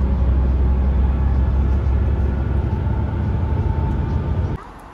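Steady low rumble and road noise of a moving vehicle heard from inside the cabin, cutting off suddenly about four and a half seconds in.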